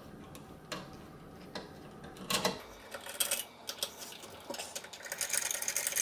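Screwdriver working the two screws out of the plastic bottom plate of a DF64 II coffee grinder: a few scattered clicks, then a run of quick, fine ticking over the last three seconds.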